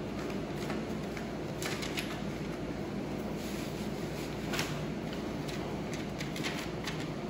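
Newspaper crinkling and rustling under puppies' paws as they scamper and wrestle on it, in scattered short crackles, the loudest about four and a half seconds in, over a steady low hum.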